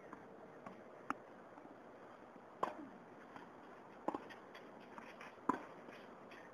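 Tennis rally: four sharp pops of a tennis ball struck by rackets, roughly a second and a half apart, with fainter clicks in between.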